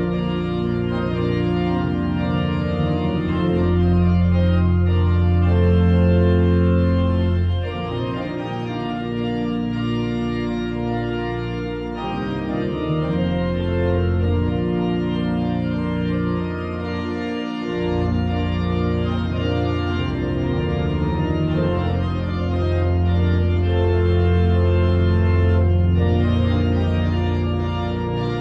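Church organ playing slow, sustained chords over a deep held bass, the chords changing every few seconds.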